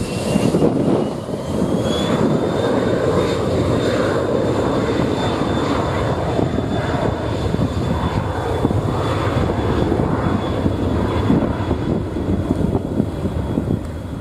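Cessna Citation Excel business jet's twin Pratt & Whitney PW500 turbofans spooling up for the takeoff roll: a high whine rises over the first two seconds and then holds steady above loud rushing jet noise.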